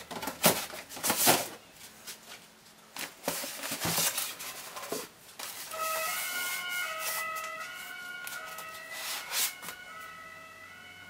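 Packaging being handled: sharp knocks and rustles of cardboard and polystyrene, loudest in the first couple of seconds. From about halfway it is quieter, with a faint run of held pitched notes, one after another, like a tune in the background.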